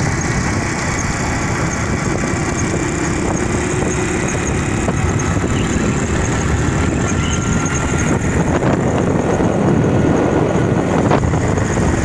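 Motorcycle on the move, heard from the pillion seat: the engine running steadily under a loud, constant rush of road and air noise.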